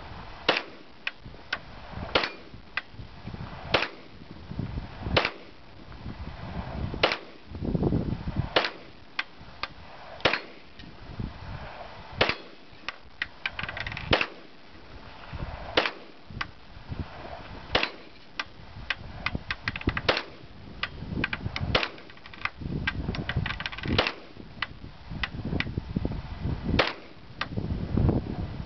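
Pistol shots fired one at a time at steel targets, a strong sharp crack roughly every one and a half to two seconds, with fainter cracks between them.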